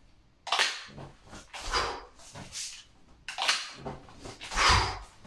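Repeated quick rustles and scrapes of a T-shirt being grabbed and a knife drawn from the waistband, about five short bursts roughly a second apart.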